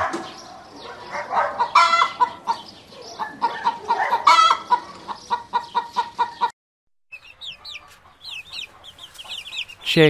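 Domestic hen clucking repeatedly, with louder calls about two seconds in and again about four seconds in. After a short break near the two-thirds mark, chicks peep in quick, high, falling cheeps.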